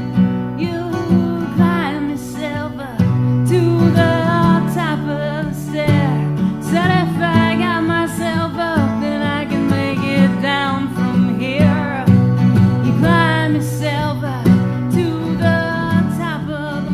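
Folk song played live on a strummed acoustic guitar, with a singing voice coming in about a second in, its melody sliding and wavering over the chords.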